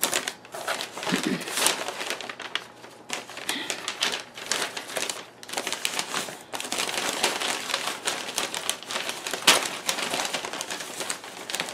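Newspaper packing paper crinkling and rustling as hands pull it apart, in irregular crackles with one sharper crackle about nine and a half seconds in.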